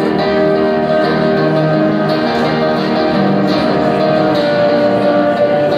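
Electric guitar played live through an amplifier, ringing held chords that change every second or so.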